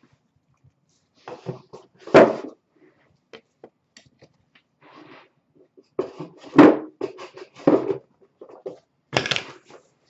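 Intermittent knocks, scrapes and rustles, as of objects being handled: a burst about two seconds in, a cluster from about six to eight seconds, and another near the end.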